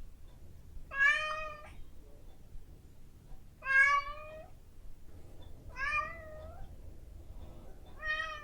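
Domestic cat meowing insistently, four meows about two seconds apart: a cat demanding her breakfast.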